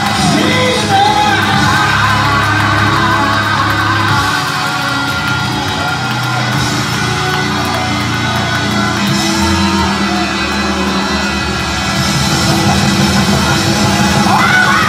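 Recorded gospel song with a woman singing over a full backing, played loud through a church sound system, with yells and shouts from the congregation.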